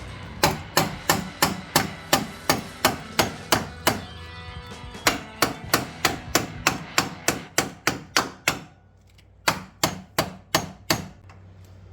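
Rapid hammer blows driving a new upper control arm into its very tight-fitting mount on a 1993 Chevy S-10 Blazer's front end. There are about three strikes a second, each with a short metallic ring, with a brief pause about four seconds in and another around nine seconds.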